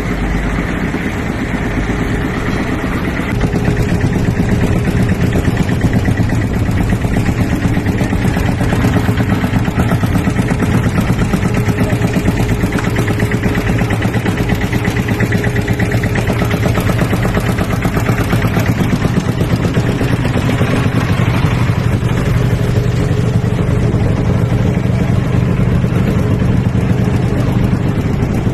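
A boat's engine running steadily, a loud constant hum that gets louder about three seconds in.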